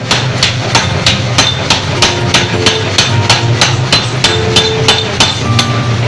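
Forging hammer striking metal in a fast, even rhythm, about three to four blows a second, over a steady low machine hum.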